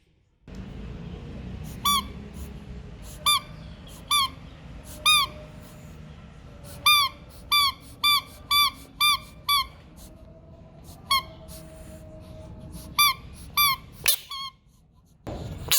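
A series of about fourteen short, high squeaks, each rising and then falling in pitch, at irregular intervals over a low background hum. A loud rush of noise comes near the end.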